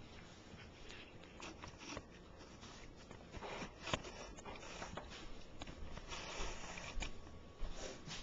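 A cat chewing and crunching on cooked chicken bones: irregular crunches and clicks, busiest about four seconds in.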